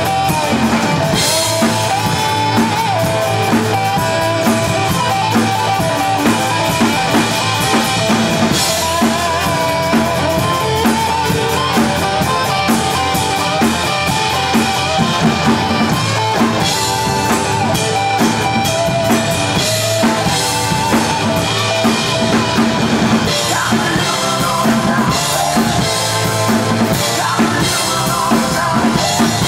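Ludwig drum kit played along to an 1980s hard-rock recording: a steady beat of kick and snare, with cymbal crashes every few seconds, over the song's pitched instruments.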